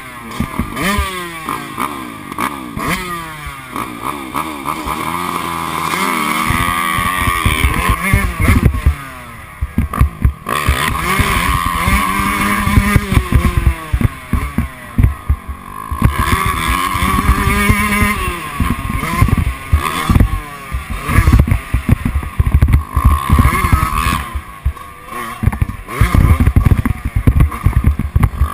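Motocross dirt bike engine revving hard and easing off again and again, its pitch climbing and dropping with each throttle roll-on and gear change, with wind rumble on the microphone.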